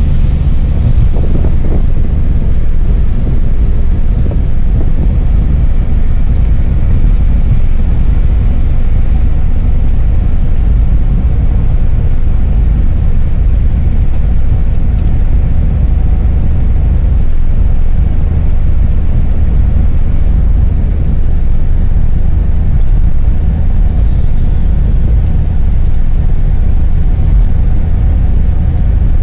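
A car's road and engine noise heard from inside the cabin while driving on wet asphalt: a loud, steady low rumble that hardly changes.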